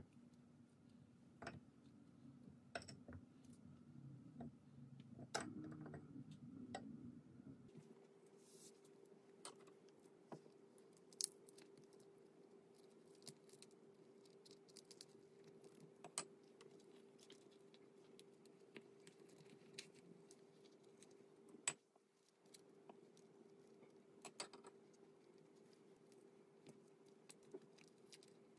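Faint, scattered clicks and taps of wooden chopsticks against a plate and a wooden cutting board as chicken pieces are picked up and set down, over a faint steady hum. A few taps are sharper.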